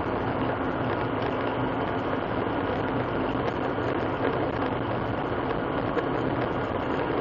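Steady drone of a moving car's engine and tyres, heard from inside the cabin through a dash cam's microphone.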